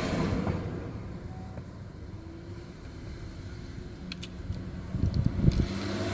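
A vehicle engine running steadily, with a few sharp clicks about four seconds in and several thumps around five seconds.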